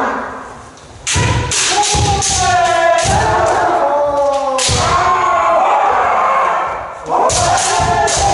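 Kendo practitioners shouting long, drawn-out kiai, with sharp cracks and thumps of shinai strikes and stamping feet on the wooden dojo floor. The first bout of shouting and strikes starts suddenly about a second in, and another starts near the end.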